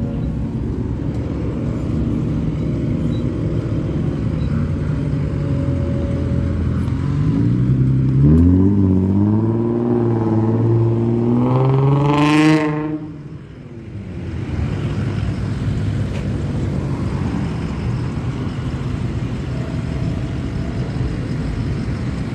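Traffic of cars and trucks running at low speed. About eight seconds in, one vehicle's engine revs hard, its pitch climbing in steps over about four seconds. It peaks with a short burst and then drops away suddenly.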